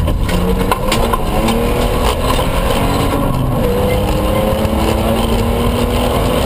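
Toyota pickup rally truck at speed on a gravel stage, heard from inside the cabin: the engine note rises and falls with throttle and gear changes over steady tyre and gravel noise. A few sharp knocks come in the first couple of seconds.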